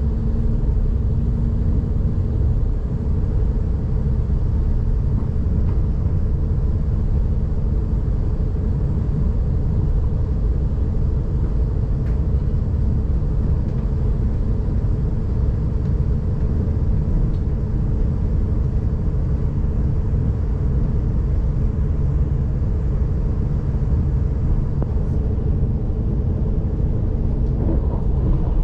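Inside a moving S-Bahn electric train's passenger coach: a steady low rumble of the wheels on the rails, with a constant hum over it.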